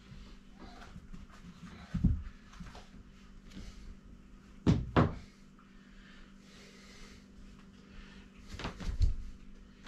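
Bare feet thudding on a wooden floor: a few scattered low thumps, the loudest a quick double thump about five seconds in, over a faint steady hum.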